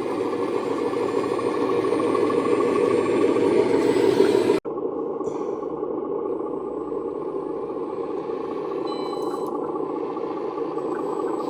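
A scale RC excavator's hydraulic pump and motors run with a steady whir. The sound grows a little louder, breaks off suddenly for an instant about four and a half seconds in, then carries on at an even level.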